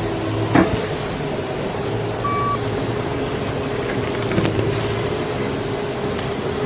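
Heavy machine's diesel engine running steadily with a constant whine, and one sharp knock about half a second in.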